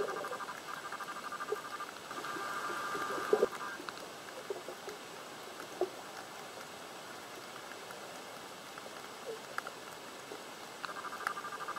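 Underwater sound picked up by the camera: scattered faint clicks and a few short low knocks, with a rapidly pulsing buzz through the first four seconds that breaks off and returns near the end.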